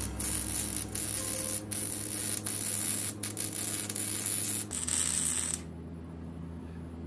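MIG welder arc on steel: a steady hiss broken by a few short pauses between beads, cutting off about five and a half seconds in, leaving a low steady hum.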